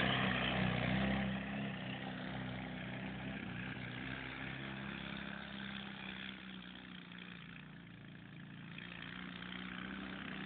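Fiat 126p (Maluch) 650 two-cylinder engine on a homemade buggy, running steadily under way. It fades as the buggy moves away, is quietest about eight seconds in, then grows louder as it comes back.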